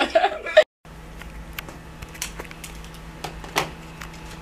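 Lash technician's small tools and supplies being handled at the tray: scattered light clicks and ticks over a steady low room hum.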